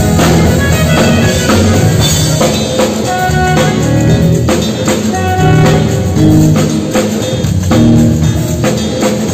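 Instrumental band music with a drum kit keeping a steady beat under held melody notes.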